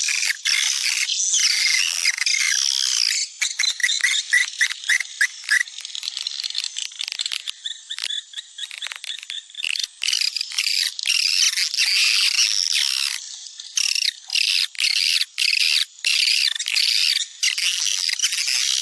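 Swiftlet calling sound (suara panggil walet) played as a recording: a dense, high-pitched chorus of twittering chirps mixed with rapid clicks, the kind of call track used to lure swiftlets into a nest house.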